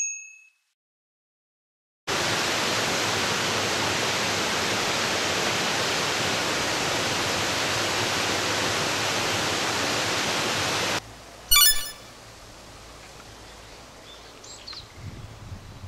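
Mountain stream cascading over rocks: a steady rush of water that starts after about two seconds of silence and cuts off abruptly about eleven seconds in. A short bright chime follows, then quiet outdoor background with a few faint chirps.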